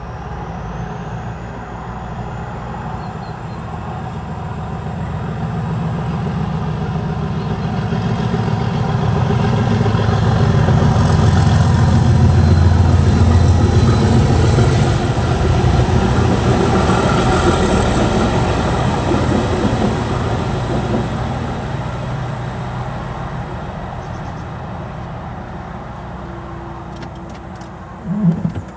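Class 37 diesel locomotive 37402, with its English Electric V12 engine, hauling a passenger train over the crossing. The sound builds as it approaches, is loudest and deepest about ten to fifteen seconds in as the locomotive passes, then the coaches roll by and fade. A short knock comes near the end as the crossing barriers begin to rise.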